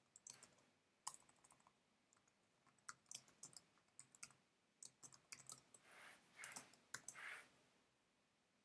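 Faint typing on a computer keyboard: a run of irregular key clicks, with a few closely bunched strokes about six to seven seconds in, then stopping shortly before the end.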